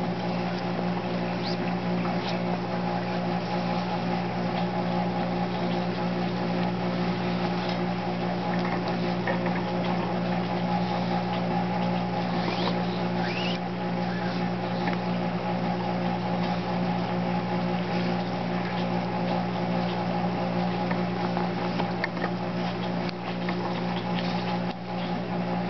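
A steady machine hum made of several even tones, like a motor running, under faint scattered clicks and rustles of paracord being woven around a hatchet handle.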